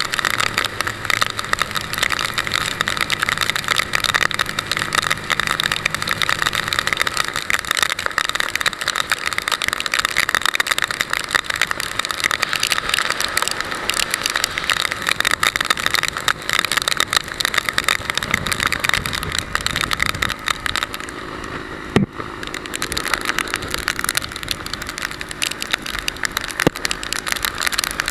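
Wind buffeting a motorcycle-mounted camera's microphone at road speed in the rain, a steady fluttering rush with wet road spray, and the motorcycle's engine humming faintly underneath. The rush eases briefly a little after twenty seconds, broken by one sharp knock.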